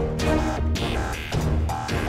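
Background music with a steady electronic beat.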